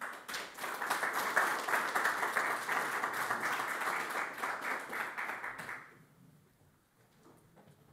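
Audience applauding: many people clapping together, fading out about six seconds in.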